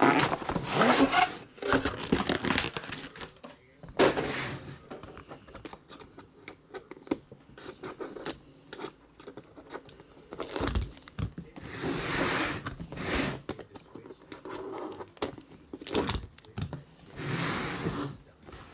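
Shrink-wrap being cut and torn off a metal card briefcase with a utility knife: bursts of tearing and crinkling plastic between quieter handling, with a couple of sharp knocks against the case.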